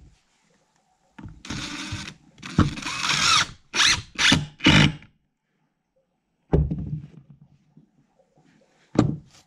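DeWalt 20-volt cordless drill driving a drywall screw into a glued stack of plywood. It runs in two spells of about a second each, then three short bursts as the screw seats. A knock follows about a second and a half later, and a sharp click comes near the end.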